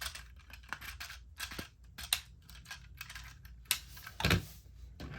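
Plastic Lego pieces clicking and rattling as they are handled and fitted, with a louder knock about four seconds in.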